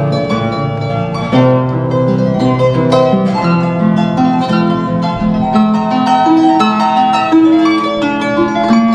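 Harp played live: plucked notes ringing on over one another, with low bass notes under the melody and a louder group of notes struck about a second and a half in.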